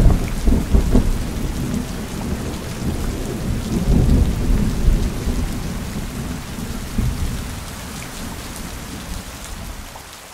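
Thunderstorm: steady rain with rolling thunder, loudest at the start and rumbling on in swells before fading out near the end.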